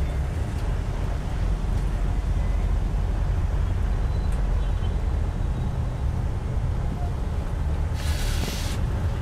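Steady low road and engine rumble heard from inside a moving vehicle's cabin, with a short hiss lasting under a second about eight seconds in.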